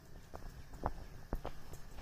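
A few light clicks and knocks from hands handling cabbage pakoda batter in a glass bowl. The two loudest come about half a second apart near the middle.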